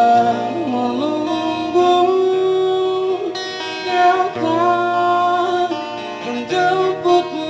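Live slow song: a man singing long held notes into a microphone while strumming a guitar, both coming through a small amplified speaker.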